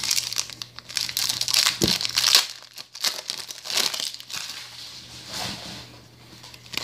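Foil wrapper of a Dragon Ball Z trading-card pack crinkling as it is handled and opened, in irregular bursts that are loudest in the first two and a half seconds and die down after about five seconds.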